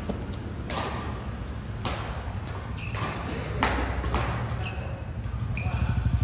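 Badminton rackets striking a shuttlecock in a doubles rally: about four sharp cracks a second or so apart, with short squeaks of shoes on the court floor, over a steady low hum.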